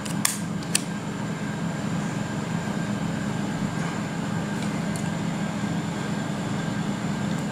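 A steady low hum of background noise, with two short clicks in the first second and a couple of fainter ticks midway as the phone is handled.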